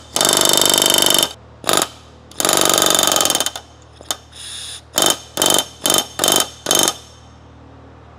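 Pneumatic rivet gun hammering solid rivets into aluminium sheet: two bursts of rapid hammering about a second long with a short one between, then five short bursts at about two a second.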